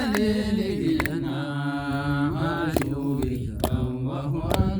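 Voices singing a held, slowly gliding note of a devotional chant between lines of the refrain, with sharp percussive strikes about once a second.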